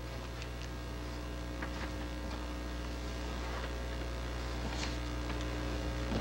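Steady electrical mains hum in the microphone and recording chain, with a few faint ticks scattered through it.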